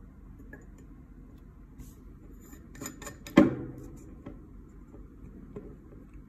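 Spray pump being fitted into the glass neck of a perfume bottle: a few light glassy clinks and ticks, then one sharp, loud click with a short ring about three and a half seconds in.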